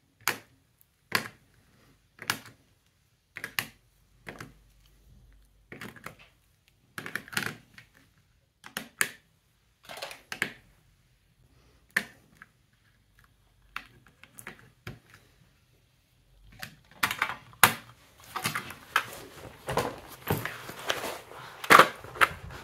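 Caran d'Ache Neocolor wax crayons being set down one at a time in an empty metal tin, a sharp click about once a second. From about three quarters of the way in, the clicks give way to denser clattering and rustling as the filled tin is handled and pushed into a fabric case.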